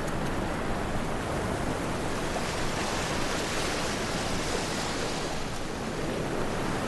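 Ocean surf on a sandy beach: a steady rush of breaking waves that swells a little around the middle.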